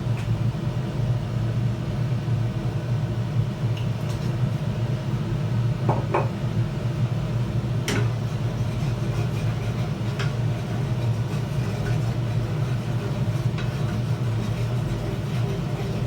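A steady low mechanical hum, with a few light clinks of utensils on cookware about six, eight and ten seconds in.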